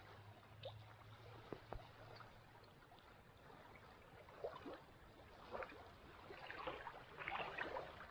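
Faint small waves lapping and trickling among shoreline rocks, the splashing a little busier in the second half.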